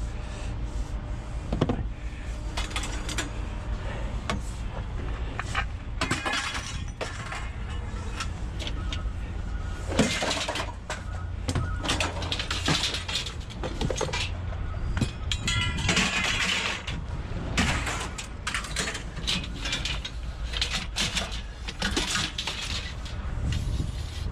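Irregular metal clanks, knocks and scraping from hand tools and metal parts as scrap is pulled apart, with some ringing metallic hits, over a steady low rumble.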